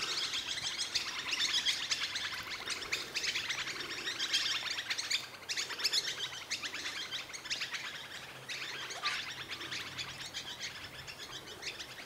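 Many birds chirping and twittering in a dense, fast chatter, which thins out about eight seconds in.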